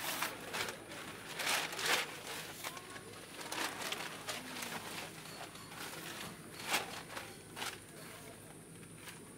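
Fabric of a camping sleeping mat and its stuff sack rustling and crinkling as the mat is pulled out of the bag and spread out, in irregular bursts.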